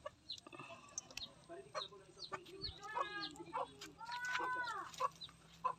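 Chickens clucking, with a longer drawn-out hen call about four seconds in, over faint crackling of a wood fire.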